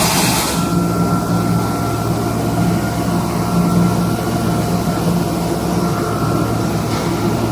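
KM KMC-720N automatic fabric cutting machine running with a steady mechanical hum, with a short hiss right at the start.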